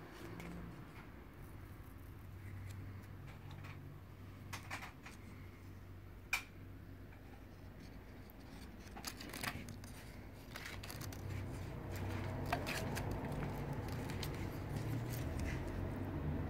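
Scattered light clicks, ticks and scrapes from a thin cord cat toy dragged along a wooden floor against a glass pane, with one sharper tick about six seconds in, over a low rumble that grows louder in the second half.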